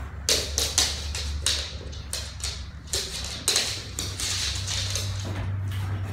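A Siberian husky's paws and claws tapping and scrabbling irregularly on a laminate floor and sofa as it jumps down and moves about.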